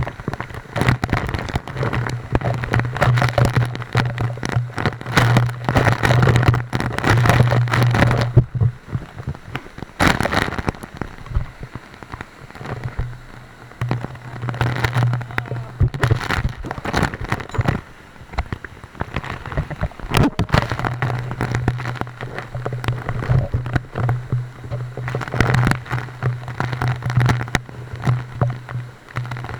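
Water from the waterfall pattering and splashing close against the microphone, in dense crackling bursts, with a low steady hum that comes and goes several times.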